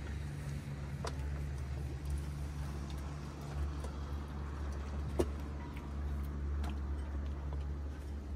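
A steady low engine-like hum, with scattered light clicks and one sharper tick about five seconds in.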